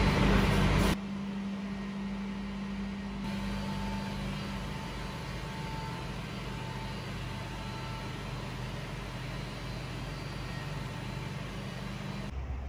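Olive oil mill machinery running with a steady hum: the motor-driven oil separator that spins the pressed olive oil clear. A louder stretch of machine noise in the first second gives way to a quieter, even hum.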